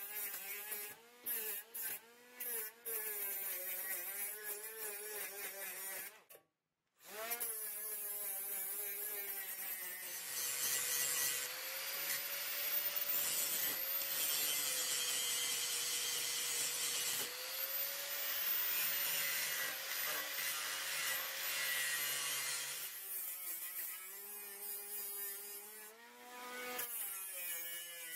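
Angle grinders working a steel bar clamped in a vise. A small cordless angle grinder whines in short starts and runs, its pitch wavering under load. For the middle stretch a larger angle grinder grinds the steel with a steady whine and a harsh hiss, and the small grinder's whine returns near the end.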